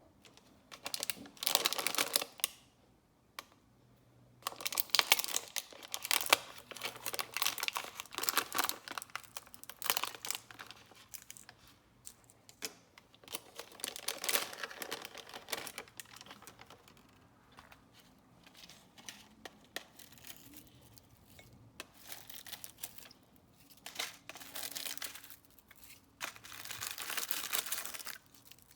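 Small plastic snack packet crinkling and rustling in the hands in several bouts, as it is opened and its contents are emptied out.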